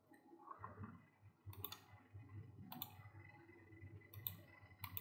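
About half a dozen faint computer mouse clicks, spread out over near-silent room tone.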